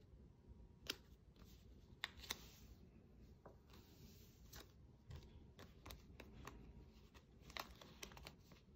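Faint, scattered light clicks and short crinkling, peeling sounds of heat-transfer vinyl sheet being handled, with a cluster of clicks near the end.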